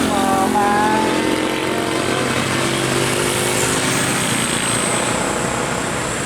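A bus's multi-tone musical air horn (a 'telolet' horn) playing a short melodic phrase that ends about a second in, followed by the steady noise of the bus engine and traffic going by. A thin high whine comes in about four seconds in.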